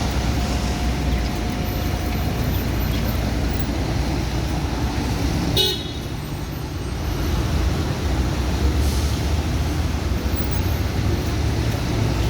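Road traffic rumbling steadily, with one short car horn toot about five and a half seconds in.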